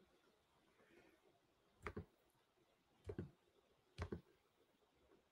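Computer mouse clicking three times, about a second apart, each click a quick pair of ticks, over the near silence of a quiet room.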